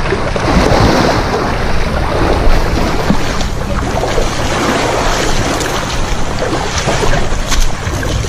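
Sea surf washing in, with wind buffeting the microphone in a loud, steady rush.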